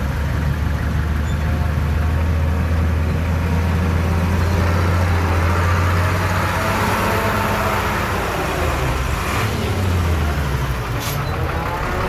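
Heavy earthmoving machinery's diesel engine running steadily, with wavering higher tones rising and falling in the second half and a brief hiss about eleven seconds in.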